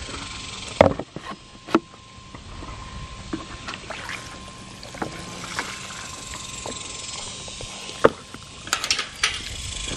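A white plastic bucket carried and handled: a few sharp knocks and clatters of the bucket and its handle, about a second in, near two seconds and again in a cluster near the end, over a steady outdoor background noise.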